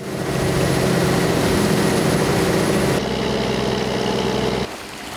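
A fishing boat's engine running at a steady, even drone over the hiss of water along the hull. The sound shifts abruptly about three seconds in and drops away near the end.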